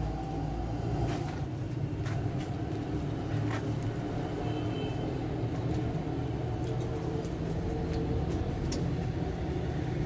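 Steady low background rumble with a few faint scattered clicks.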